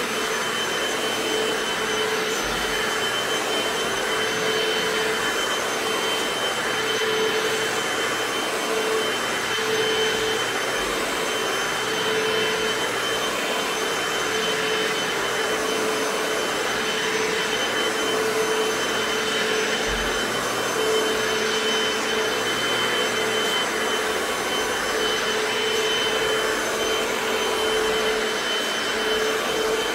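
Hoover FloorMate hard-floor cleaner running steadily as it is pushed over a wooden floor: a constant motor whine with a high tone, and a lower hum that fades and returns every second or two.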